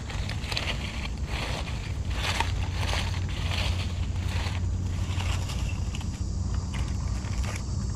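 Dry leaf litter crackling and rustling in irregular bursts as a hand brushes dead leaves aside and digs a wild mushroom out of the soil, over a steady low rumble.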